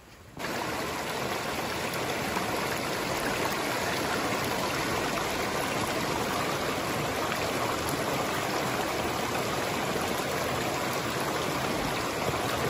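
A steady, even rushing noise that starts abruptly about half a second in and holds level throughout.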